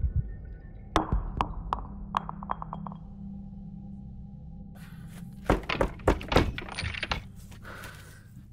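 Small glass vial dropped on a wooden floor: it strikes about a second in and bounces with clinks coming quicker and quicker until it settles. A few loud thumps follow near the end.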